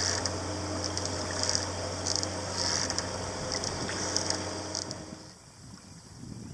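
Water swishing and sloshing as a sculling oar is worked back and forth at a sailboat's stern, in short repeated swishes over a steady low hum. It drops much quieter about five seconds in.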